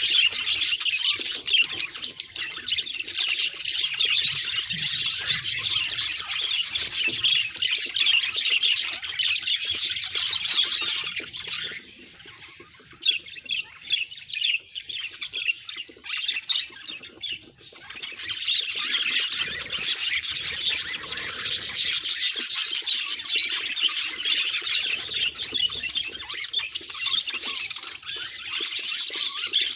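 Budgerigar warbling and chattering: a dense stream of fast chirps and squawks that thins out for several seconds about halfway through, then picks up again.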